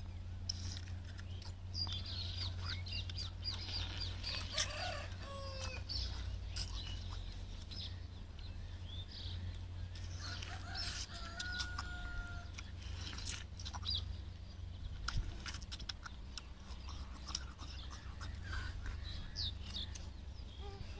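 Birds calling, with scattered small clicks and crackles as tender toddy palm fruits are handled, peeled and eaten by hand.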